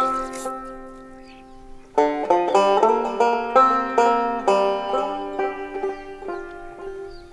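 Banjo music: a picked banjo phrase whose notes ring and die away, then a quick run of plucked notes that slows and fades.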